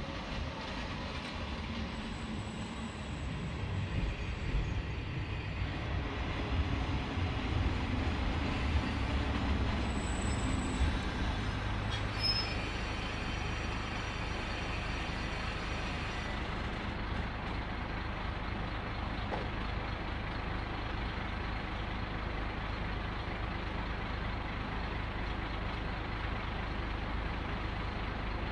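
Kashima Rinkai Railway diesel railcar pulling into the station, its rumble building as it comes in, with high brake squeal as it draws to a stop about halfway through. Its diesel engine then idles steadily at the platform.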